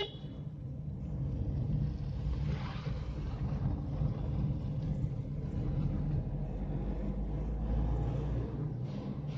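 Steady engine and road rumble heard from inside the cabin of a Hyundai car on the move, with a deeper low hum swelling for a few seconds past the middle.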